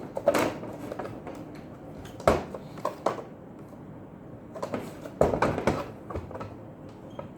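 Knocks and clatter of a sandwich maker's opened housing and parts being handled, a few sharp hits spread through, with a busier run of them about five seconds in.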